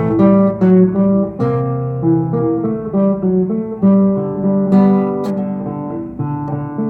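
Acoustic guitar playing an instrumental passage of chords and picked notes, with a sharp pluck at the start of each new chord.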